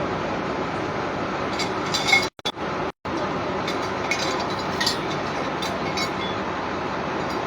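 Scattered light metallic clinks of steel bridge parts being handled and stacked, over a steady background noise. The sound cuts out briefly twice, about two and a half and three seconds in.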